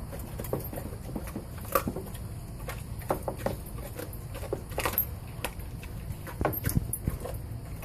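Retriever chewing and mouthing a raw chicken leg: irregular wet clicks and crunches of teeth on meat and bone, with the leg knocking on the plastic crate floor. A steady low rumble runs underneath.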